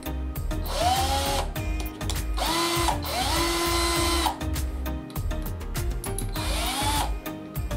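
Black+Decker BCD003C2K 18V cordless hammer drill motor run in four short bursts, each whining up, holding briefly and winding down, as the keyless chuck is spun to clamp a drill bit. Background music with a steady beat plays throughout.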